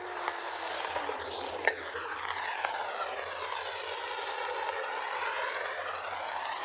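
An aircraft flying over, a steady rushing drone with the slowly sweeping tone of a passing plane, with a few sharp clicks over it.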